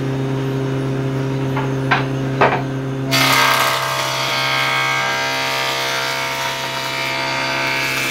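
Electric woodworking planer running with a steady hum; a couple of knocks as the wood block is set on the table, then about three seconds in the cutter head bites into the board and a loud, continuous cutting noise carries on as the block is pushed across.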